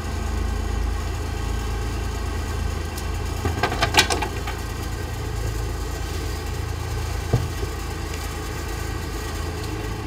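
Small fishing boat's engine running steadily with a low hum. A quick cluster of clattering knocks comes about four seconds in, and a single sharp knock a few seconds later.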